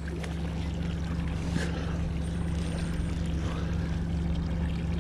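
A Mercury outboard motor running steadily at trolling speed, an even low hum with water washing past the boat.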